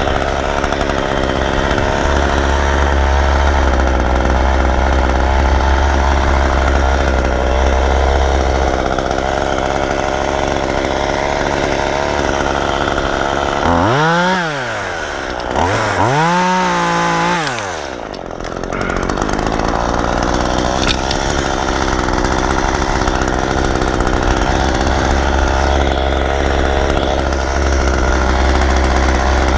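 Chainsaw running steadily. About halfway through, it is revved up and let back down twice in quick succession.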